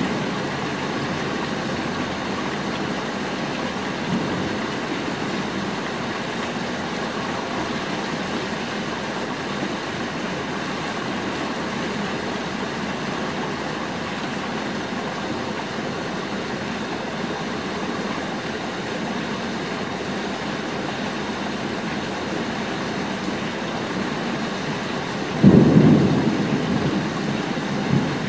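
Steady rain falling, with a sudden clap of thunder near the end that rumbles low and dies away over a couple of seconds.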